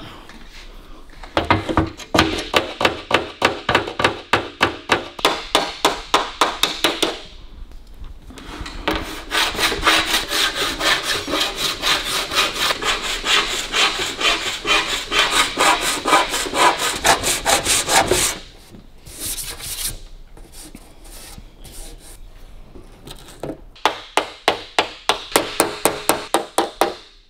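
Body file scraping in quick, rhythmic strokes across an aluminium bonnet panel, in three runs with short pauses between. The filing skims the high spots to show up and level the surface during metal finishing.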